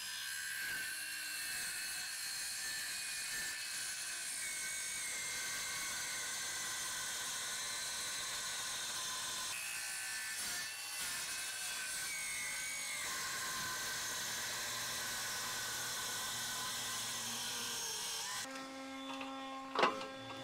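Handheld circular saw cutting through a sheet of plywood, running steadily with a high whine that dips a little under load. It stops near the end, and a single sharp knock follows.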